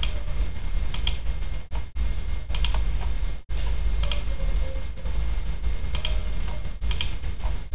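Computer keyboard and mouse clicking a few times while an email is edited on screen, with single clicks or quick pairs every second or so. A steady low hum runs underneath.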